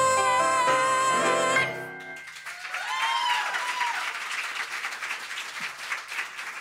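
A young female singer's belted final note, held over accompaniment, cuts off about a second and a half in. Audience applause and cheering follow, with a couple of whoops a second or two later.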